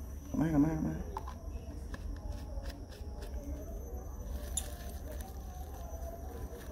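Baby monkey being bottle-fed, with faint squeaky whimpers and light handling of the bottle. A short wavering vocal sound comes about half a second in.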